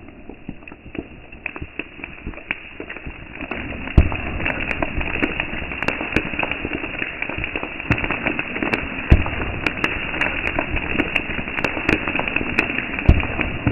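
Sodium metal reacting violently with pond water: a steady fizzing hiss under rapid crackling pops, with a few louder bangs. It grows louder about four seconds in.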